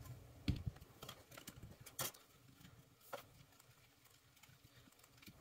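Faint handling clicks and knocks of plastic as the DJI FPV drone's quick-release propellers are twisted off their motors by hand and set down. The sharpest click comes about two seconds in.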